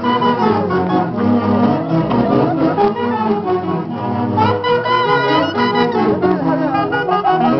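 A saxophone-led band playing a huaylas dance tune: several wind instruments sounding a melody together over a steady low accompaniment.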